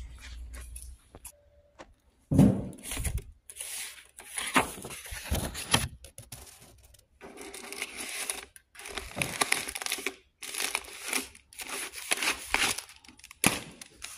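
Paper mail rustling and crinkling as envelopes and papers are pulled out of a post office box, in irregular bursts with short pauses.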